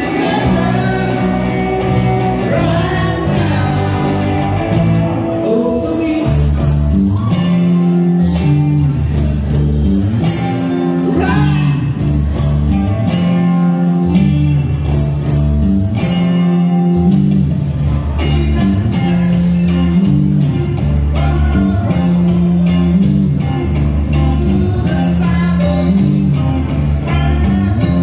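Live rock band playing: electric guitars, bass guitar, drums and keyboard, with a singer's vocals over a steady repeating bass line.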